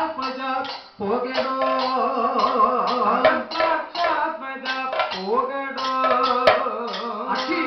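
Kathakali accompaniment: male singers (pattu) singing a held, bending melody over chenda and maddalam drum strokes. A single sharp click about six and a half seconds in.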